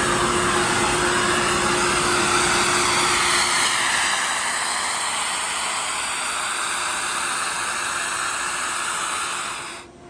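Ingersoll Rand 40 HP rotary screw air compressor running, a loud rushing noise with a steady hum beneath. It eases a little about four seconds in, then cuts off sharply near the end.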